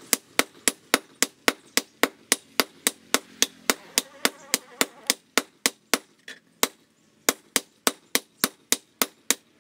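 Hand hammer striking a red-hot leaf-spring machete blade on a steel post anvil: a steady run of sharp metallic blows, about four a second, pausing briefly a little past the middle before picking up again.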